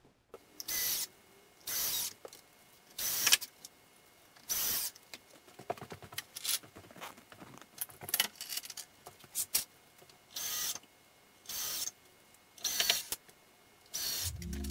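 Repeated rasping strokes of hand work on the wooden table frame, about one a second, each short and sharp. A sustained organ-like music chord comes in near the end.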